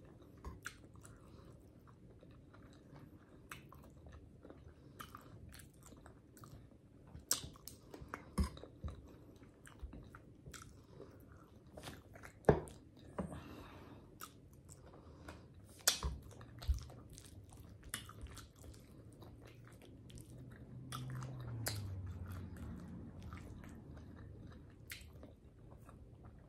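Close-miked eating of creamy chicken Alfredo ramen noodles: chewing and biting with sharp mouth smacks and clicks, a few louder ones about halfway through. A brief low hum about three quarters of the way through.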